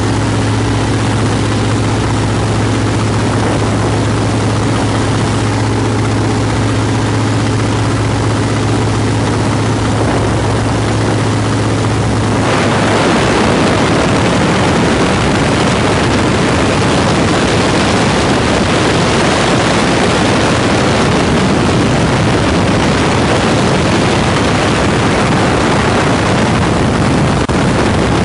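1939 Waco biplane's engine droning steadily in flight. About twelve seconds in, loud rushing wind noise sweeps in and covers the engine note.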